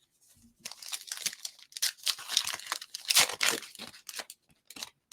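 Trading card pack wrapper being torn open and crinkled, in a run of rustling tears that is loudest in the middle.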